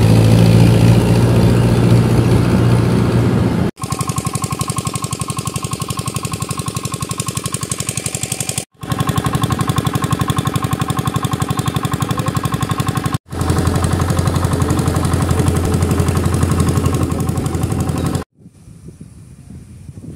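Diesel tractor engine running, heard close, with a rapid, even exhaust pulse, in several clips cut together with brief silent breaks. About 18 seconds in, it gives way to much quieter outdoor sound.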